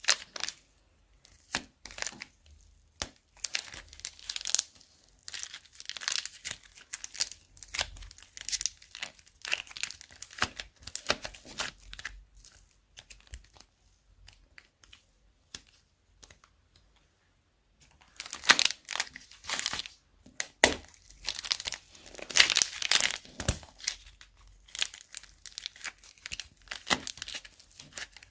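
Slime being squeezed and worked in plastic bags, making irregular crackling and crinkling. It goes quiet for a few seconds about halfway through, then comes back busier and louder.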